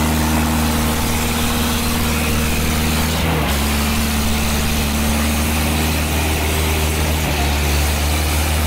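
Mahindra tractor's diesel engine running steadily under load, pulling a disc harrow weighed down with riders. The tone breaks briefly about three seconds in.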